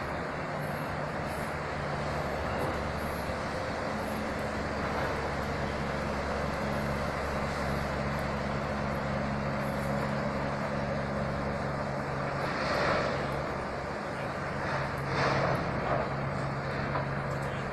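Distant engine drone, a steady low hum under a steady hiss, with two brief louder swells near the end.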